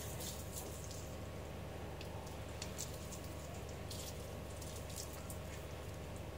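Water from a garden hose spattering off a wet dog's coat onto the floor in scattered light drips and splashes, over a steady low hum.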